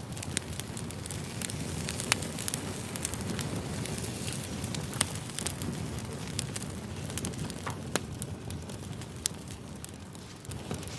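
Firewood burning: a steady low rush of flames under frequent sharp crackles and pops, with louder pops about two and five seconds in.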